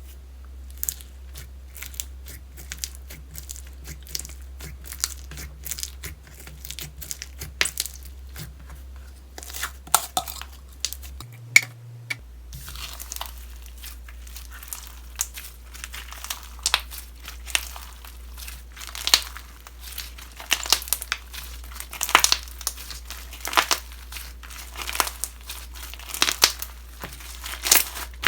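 Slime being squished and stretched by hand, giving a dense run of small crackling pops and clicks.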